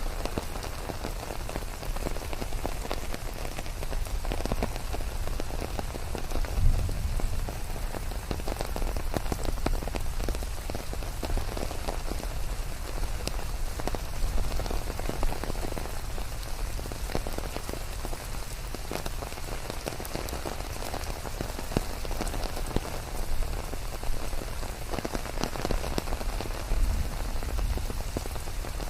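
Steady rain falling, with dense patter of individual drops hitting surfaces close by.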